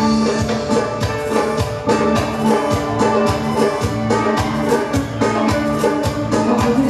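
A live band playing an upbeat dance tune: a steady drum beat with bass guitar and keyboard.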